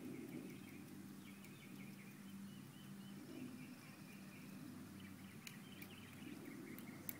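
Faint outdoor ambience: birds chirping over a low steady hum.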